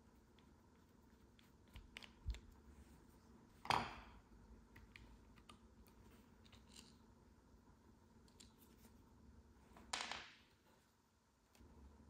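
Quiet handling of plastic gear-knob parts: small clicks and rubs, with a louder knock about four seconds in and another near ten seconds as a tool and parts are set down on the wooden workbench.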